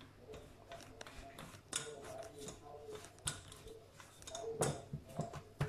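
Rolling pin rolling out pizza dough on a floured granite countertop: faint rolling with a few light clicks and knocks as the pin moves over the dough and stone.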